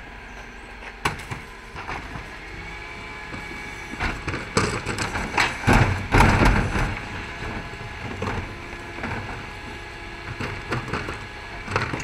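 A Terberg bin lift on a Dennis Elite 6 refuse truck tips wheelie bins into the hopper. Over the truck's running engine and hydraulics, there is a burst of clattering and thuds from about four to seven seconds in as the rubbish falls in, with sharp knocks of the bins against the lift at other moments.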